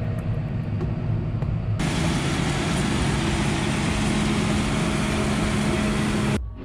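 Claas combine harvester with its Vario 1080 header running close by while cutting the crop: a loud, steady machine noise with an engine hum under it. It starts abruptly about two seconds in, after a quieter steady cab hum, and cuts off just before the end.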